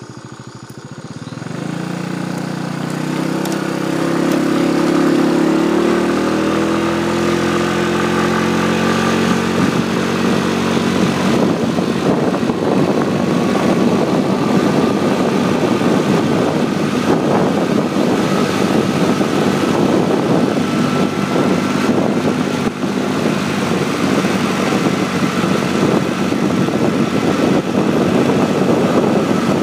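Small motorbike engine accelerating, its pitch rising over the first few seconds, then running steadily while climbing a mountain road. Wind noise on the microphone builds as speed picks up.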